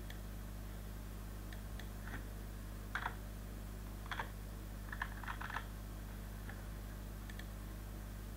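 Computer keyboard keys tapped one by one, with a quick run of taps about five seconds in, as a number is typed in. Some of the clicks may be mouse clicks. A steady low hum runs underneath.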